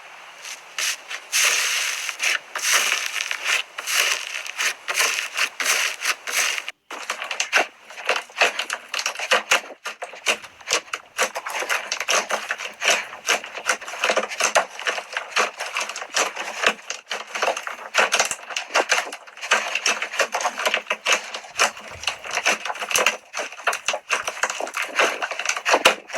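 Slime being squeezed and pressed by hand, giving a dense run of crackling, popping clicks from air pockets bursting, with a short break a little before the middle.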